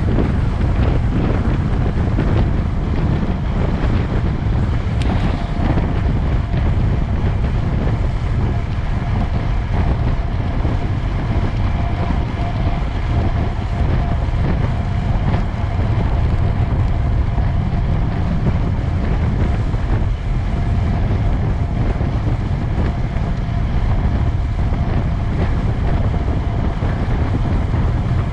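Steady wind noise buffeting the microphone, a dense low rumble, with a faint steady hum partway through.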